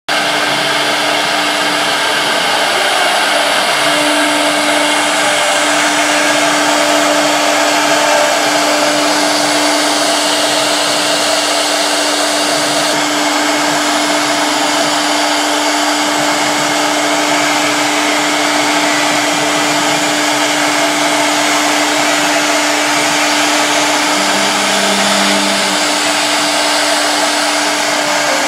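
1325 CNC router's spindle running while its bit engraves lettering into a board: a loud, steady whirring hiss. A steady hum sets in about four seconds in, and a lower tone joins briefly late on.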